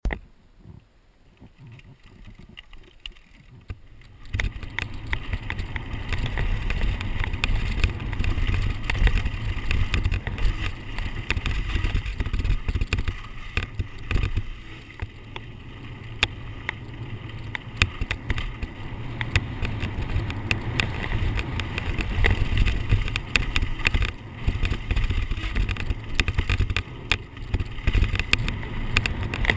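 Downhill mountain bike ridden fast over a rough, rocky dirt trail, recorded on an on-bike action camera. Wind buffets the microphone in a constant low rumble, over the rattle and clatter of the bike with many sharp knocks from stones and the frame. The ride sound comes in about four seconds in, after a quieter opening.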